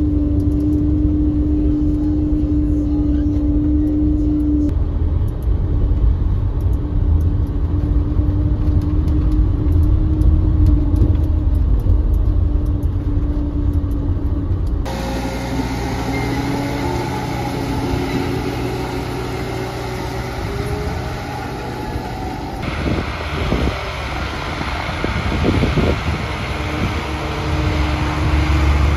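Snow groomer's diesel engine running under load, a steady low drone and rumble. A few knocks come around three quarters of the way through.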